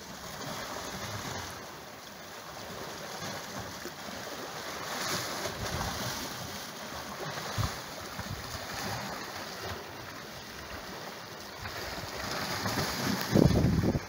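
Sea swell surging and breaking in foam against rocks, with wind buffeting the microphone; a louder low buffet comes near the end.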